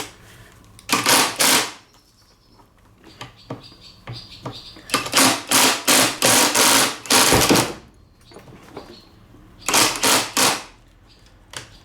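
Cordless impact driver run in short trigger pulls, its anvil hammering against a seized bit clamped in a bench vise. The bursts come in three groups: two about a second in, a run of about five in the middle, and two more near the end.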